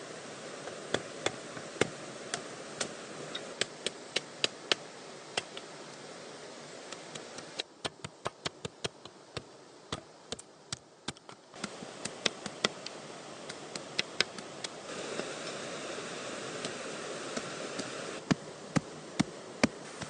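Machete blade chopping into a green wooden pole: irregular sharp chops, a few a second at times, over a steady background hiss.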